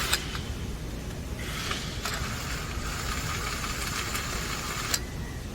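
Power drill running in reverse to back out the screws on an electric motor's fan guard: a steady whir starting about a second and a half in and cutting off abruptly about five seconds in, after a short click near the start.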